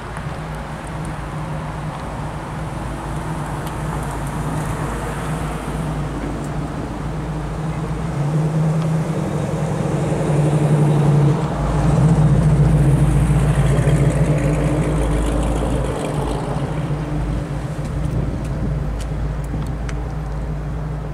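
A car engine running steadily with a low hum, growing louder for several seconds in the middle before settling back.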